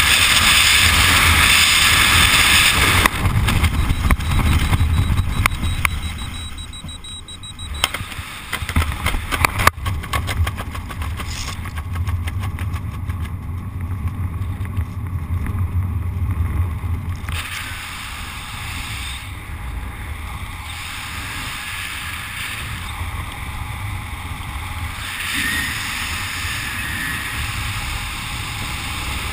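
Freefall wind rushing loudly over a helmet camera's microphone, falling away as the parachute deploys, with sharp snaps and rapid fluttering of canopy fabric in the middle. After that, softer, steady wind under the open canopy.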